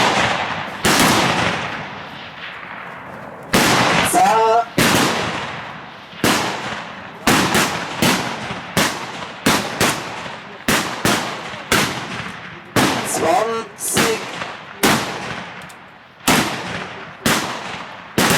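Rifle fire from a 300 m firing line, with carbines and standard rifles firing: about two dozen shots at irregular intervals, sometimes several within a second, each with a long echoing decay. These are competitors firing their timed three-shot series.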